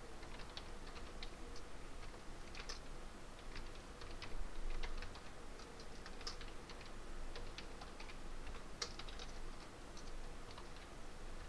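Computer keyboard typing: a string of irregular key clicks as a short line of text is typed, over a faint steady hum.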